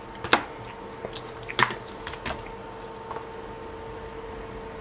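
Coins in cardboard holders and plastic album pages being handled on a table: a few light taps and clicks, the sharpest about a third of a second in and others around one and a half and two and a quarter seconds in, over a faint steady hum.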